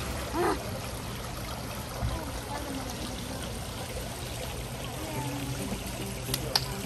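Steady trickling, pouring water, as from a garden pond or water feature. A short rising call stands out about half a second in, and there is a sharp click near the end.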